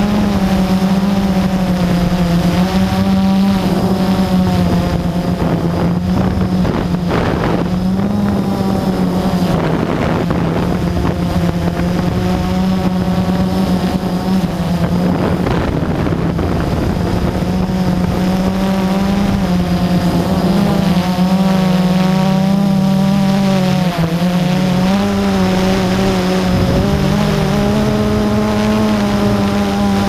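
Blade QX3 quadcopter's electric motors and propellers running in flight, heard from the GoPro mounted on it: a loud, steady hum with higher whines above it, all shifting a little up and down in pitch as the motors speed up and slow down.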